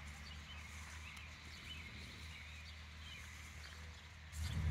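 Faint outdoor background: a low steady hum with scattered faint high chirps. Near the end a louder low rumble comes in.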